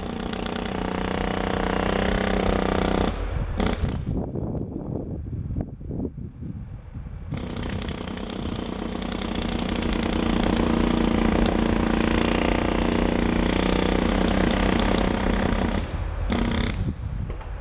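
Jackhammer breaking out the top brick courses of a masonry chimney, running in bursts. It runs for about three seconds, gives a couple of short blips, stops for about three seconds, then runs for about eight seconds before one more short burst near the end. A low steady rumble sits underneath throughout.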